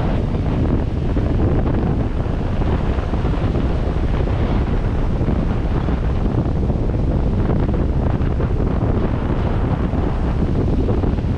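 Steady wind rumble buffeting the microphone of a 4x4 driving along the beach, with the noise of surf and the moving vehicle blended in.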